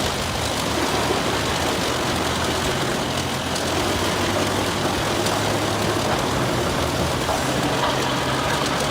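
Wood chipper running steadily: a low engine note under a dense, even noise of the machine at work.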